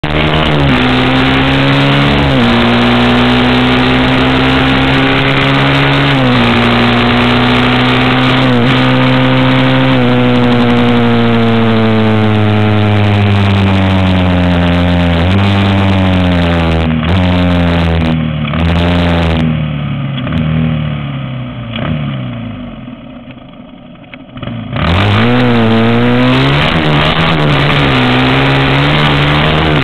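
Dirt bike engine running hard on the road, its pitch climbing and dropping back several times as it shifts up through the gears. It then winds down as the throttle is eased off, goes quiet and low for a few seconds, and revs sharply back up about 25 seconds in.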